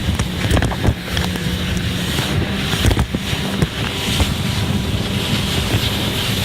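Jet ski engine running at speed with a steady hum that wavers slightly in pitch, over wind buffeting the microphone and rushing water, with a few short knocks.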